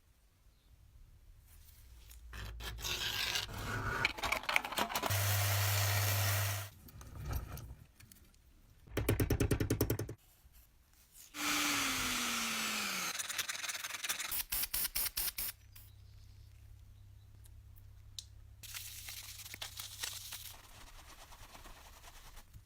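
Separate bursts of scraping and rubbing on a toy during restoration work, with a short whine that falls in pitch a little past halfway.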